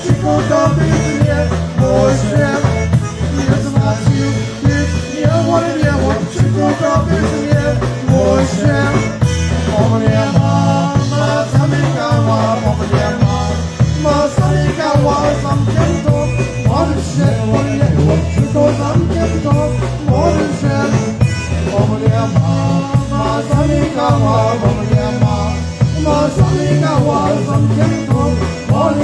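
Live polka band playing a polka, with a steady oom-pah bass beat under the melody instruments.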